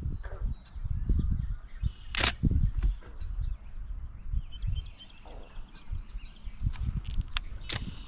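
Wind gusting on the microphone, with small birds chirping in the background and a few sharp clicks, the loudest about two seconds in and three more near the end.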